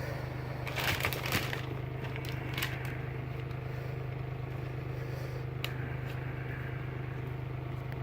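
Crinkling, rustling handling noise, with a cluster about a second in and a short one a little later, as the new sneakers and their packing paper are handled. A single click comes near the middle, and a steady low hum runs underneath.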